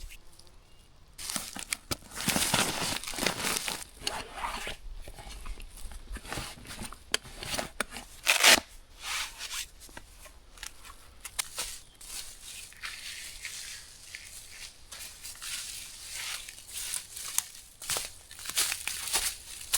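Dry leaves and brush rustling and crunching in irregular bursts, as from someone moving through or clearing forest litter, with one sharp crack about eight and a half seconds in.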